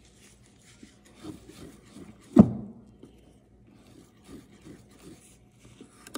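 Utensil scraping and stirring rice-flour batter in a bowl, with light intermittent rubs and one hard knock about two and a half seconds in.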